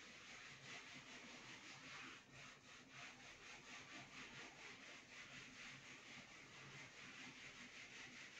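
Faint, rhythmic rubbing of a hand-held eraser wiped back and forth across a whiteboard in quick strokes.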